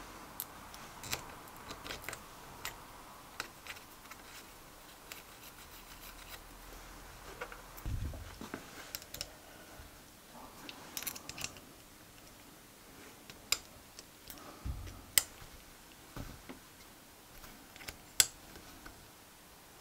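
Small metal parts clicking, scraping and ticking as crankshaft bearing caps are screwed down in an aluminium engine block with a small hand tool. Light, scattered ticks and taps, with a couple of duller knocks in the middle.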